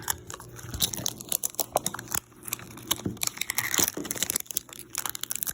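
Plastic packaging of a Mini Brands capsule ball crinkling and tearing as it is unwrapped by hand, an irregular run of sharp crackles and small clicks, busiest a little after halfway.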